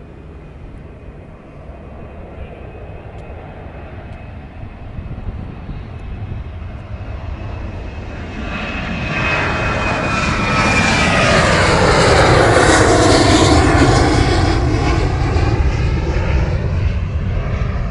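Airliner's jet engines passing close by: a low rumble that builds over several seconds into loud engine noise, peaking about two-thirds of the way through, while a high whine slides down in pitch as the aircraft goes past.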